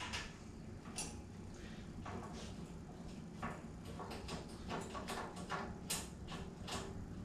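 Scattered light clicks and small rattles of hands working the red plastic blade guard loose from a bandsaw's upper guide assembly, over a steady low hum.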